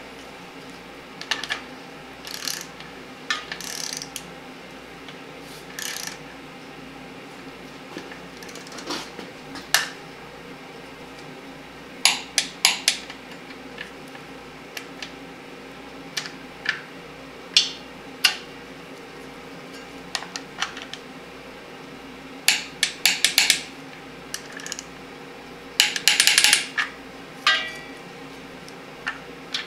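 Torque wrench ratcheting in short bursts of clicks, with scattered metal clinks, as the rear main seal cap bolts are tightened to 30 lb-ft, alternating side to side.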